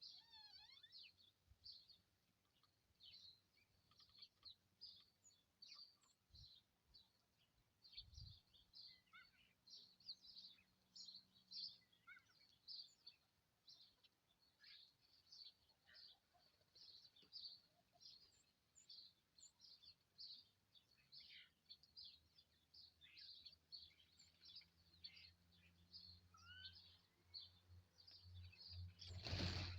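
Many small wild birds chirping at a feeding spot: a steady run of short, high chirps, some quick falling calls among them. A sharp click near the end.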